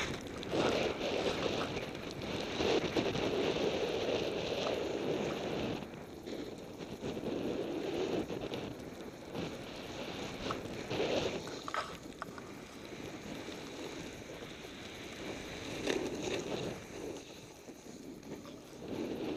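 Snowboard sliding and turning through snow: a rushing hiss that swells and fades with each turn, with wind buffeting the microphone.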